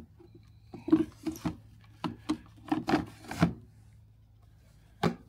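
EGO 56V 12 Ah battery's plastic casing scraping and knocking against the plastic storage compartment of an EGO 56V mini bike as it is pushed in by hand, in a run of short rubs and bumps. A few more clunks follow near the end.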